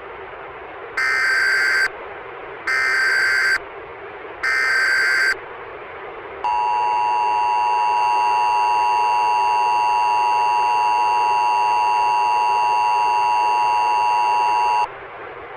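Emergency Alert System SAME header: three short bursts of warbling digital data tones, each just under a second long and spaced about 1.8 seconds apart. They are followed by the EAS two-tone attention signal (853 and 960 Hz together), held for about eight seconds before cutting off, over a steady static hiss.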